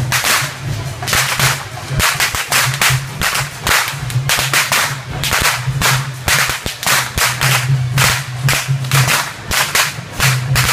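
Whips cracking over and over, several overlapping, about two to three sharp cracks a second, over a low steady drone that breaks off now and then.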